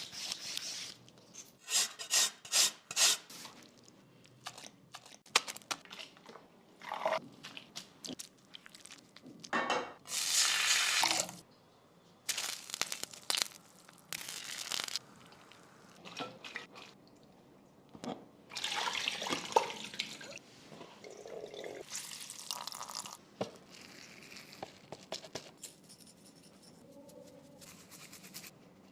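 Kitchen work sounds: stop-start bursts of running or splashing water, with short knocks and clatter in between.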